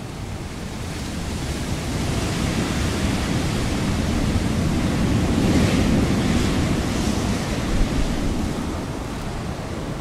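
Wind blowing in a long gust that builds to its loudest about halfway through, then eases off.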